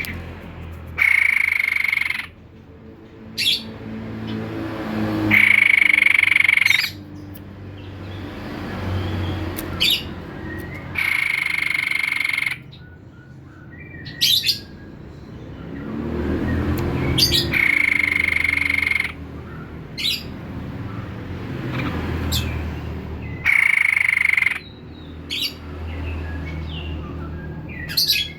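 White-breasted babbler (tepus dada putih) calling over and over: a steady, level whistled note about a second and a half long, repeated every five to six seconds, with short sharp high notes in between. A low rumble runs underneath.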